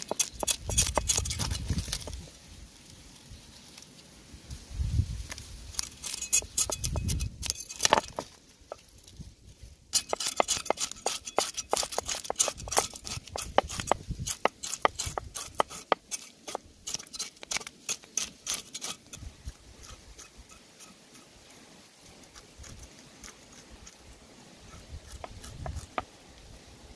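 Cleaver blade scraping the scales off a snakehead fish on a wooden block: quick, irregular scraping strokes that come thickest in the middle and thin out towards the end, with a few low thuds in the first several seconds.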